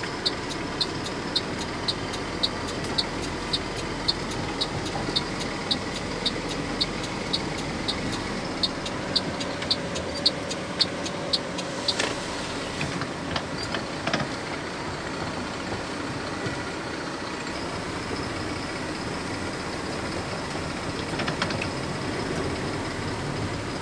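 Engine and road noise from a vehicle driving slowly over cobbled streets, steady throughout. A light regular ticking, about two a second, runs through the first twelve seconds and then stops, followed by a few scattered knocks.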